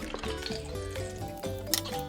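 Background instrumental music playing a melody of short held notes, with one short sharp sound near the end.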